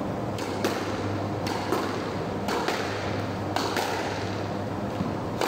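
Squash rally: a squash ball being struck with rackets and smacking off the court walls. The sharp hits come in pairs about a quarter second apart, roughly once a second, over a steady low hum.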